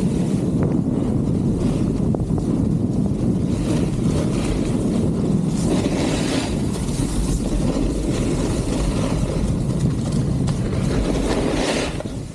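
Snowboard riding down a groomed piste: a steady rumble of the board's base on the snow mixed with wind on the microphone, with stretches of scraping hiss as the edge bites the snow. The noise drops near the end as the board slows.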